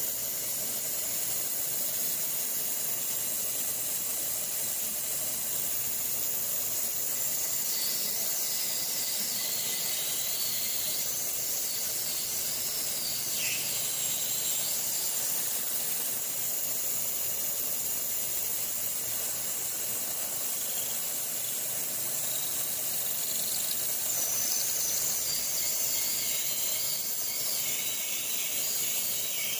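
Vertical milling machine's end mill cutting a part held in a 3D-printed fixture, over a steady high hiss. A high, wavering squeal from the cut comes and goes, from about a quarter of the way in and again near the end.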